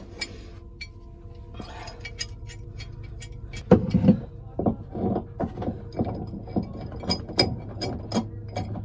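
Small pipe wrench clicking and clanking against a seized nut on an old knot-meter through-hull fitting, in an irregular run of sharp metallic clicks and knocks starting a few seconds in; the nut does not give. A steady low hum runs underneath.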